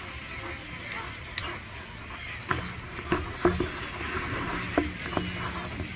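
Steady low rumble with a faint murmur of voices. About half a dozen short sharp clicks and knocks fall irregularly through the middle and latter part.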